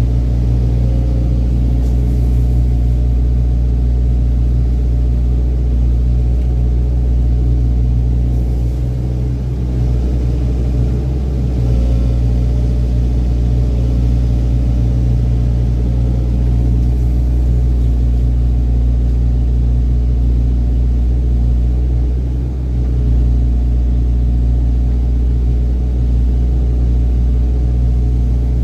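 Excavator's diesel engine running with a steady low drone.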